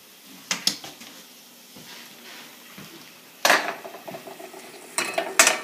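Clams tipped from a metal mesh strainer into a stainless steel saucepan: shells and metal clink against the pot. There are a couple of light clicks, a louder clatter about three and a half seconds in, then several sharp clinks near the end.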